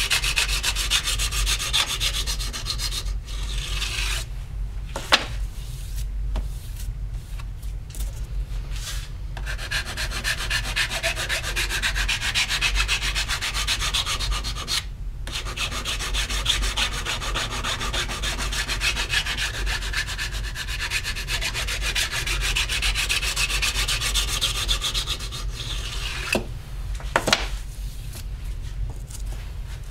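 Fast back-and-forth sanding strokes of an abrasive across a copper printmaking plate, scrubbing and polishing its surface, broken by a few short pauses. A steady low hum sits underneath.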